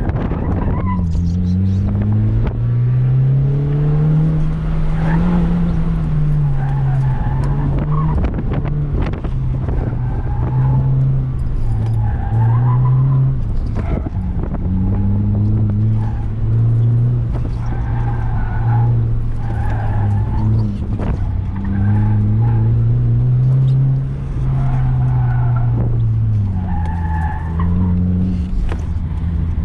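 Honda Fit's 1.5-litre four-cylinder engine revving up and down through an autocross course, heard from inside the car. Its all-season tyres squeal again and again through the corners.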